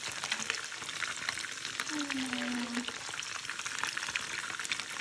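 Food frying in hot oil in a pan: a steady sizzle full of fine crackles and pops.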